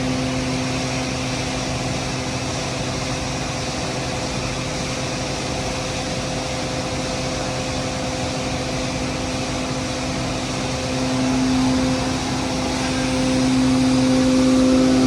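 Feed grinder machine running steadily, a constant mechanical hum over a rushing noise, growing a little louder in the last few seconds.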